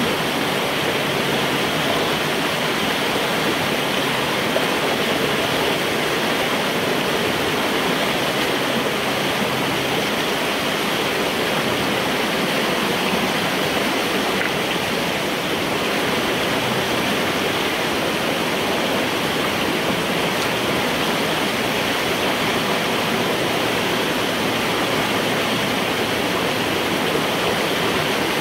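Water rushing steadily through a culvert pipe, heard from inside it: floodwater held back by a beaver dam draining as the dam is cleared out.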